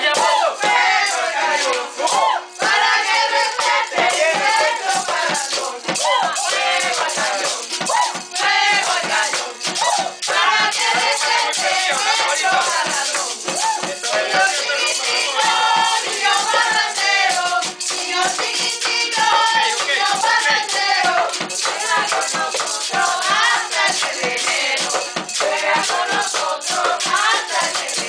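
A group singing a Venezuelan Christmas parranda song together, backed by shaken maracas, a strummed cuatro and an upturned plastic basin beaten with sticks as a makeshift drum, in a steady, busy rhythm.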